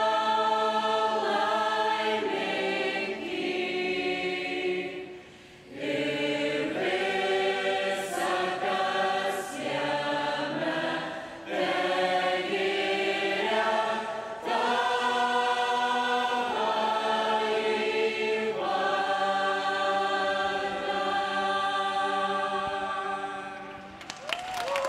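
A large mixed choir of men and women singing long held chords, phrase by phrase with short breaks between, fading out near the end.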